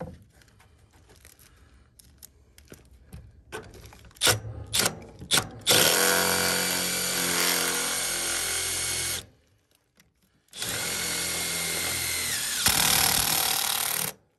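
Cordless drill driving self-drilling screws into a galvanized steel vent pipe elbow, in two runs of about three and a half seconds each: the first starts about six seconds in, the second a second after the first stops. The screws kept sliding on the taped joint. Light clicks and taps of handling come before the runs.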